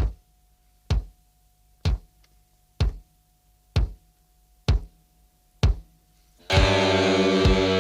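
Slow, evenly spaced bass-drum thumps, about one a second, seven in all. Heavy rock music with distorted electric guitar then comes in about six and a half seconds in.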